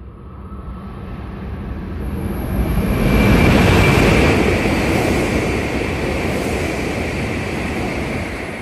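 Hokuriku Shinkansen E7/W7-series train passing through the station at speed without stopping: a rush of air and wheel noise builds, peaks about three to four seconds in with a brief high whine, then holds steady as the cars go by and eases near the end.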